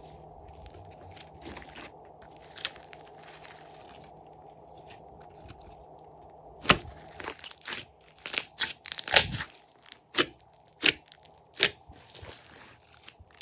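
Slime being squeezed and pressed by hand: quiet at first, then from about halfway through a run of sharp crackles and pops.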